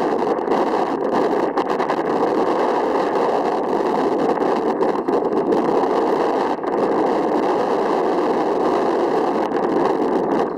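A steady, loud rushing noise with a few faint steady tones above it, holding unchanged throughout.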